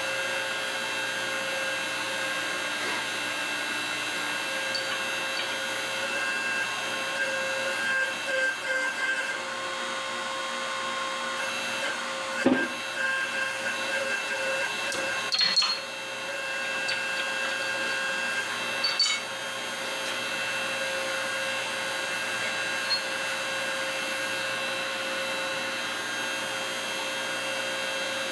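Steady machine hum with a high whine, broken by three sharp metallic clinks and knocks about twelve, fifteen and nineteen seconds in. The knocks come as a bent steel shaft is pressed back out of its hub on a hydraulic shop press.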